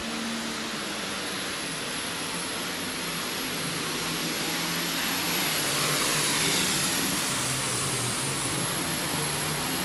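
John Deere 4955 super stock pulling tractor's turbocharged diesel engine running flat out under load as it drags the weight sled, with a high steady whistle over the engine noise. It grows slowly louder toward the middle of the run and eases a little near the end.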